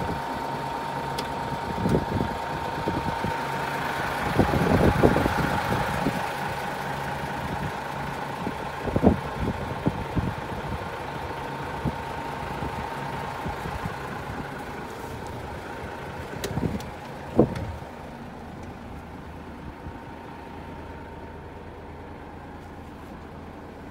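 Hino Profia heavy truck's diesel engine idling steadily, with several sharp thumps and knocks over it. In the last several seconds the sound becomes quieter and duller.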